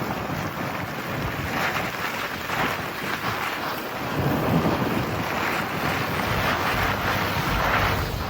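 Wind rushing over the microphone, with road noise from a moving 1999 Toyota Land Cruiser, picked up from someone hanging out of the truck. The rush swells and fades several times.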